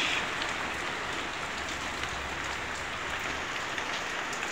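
Heavy rain falling steadily on a corrugated roof and into a flooded courtyard: an even hiss with scattered ticks of drops.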